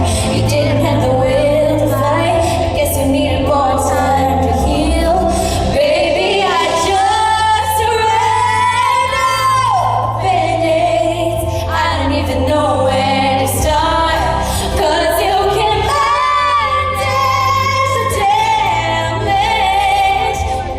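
A woman singing a pop ballad live over steady instrumental backing, holding a long note from about seven to ten seconds in.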